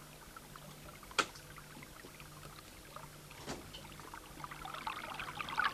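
Two sharp clicks in a quiet studio, about a second in and midway, then water beginning to run and splash into a sink, growing louder toward the end.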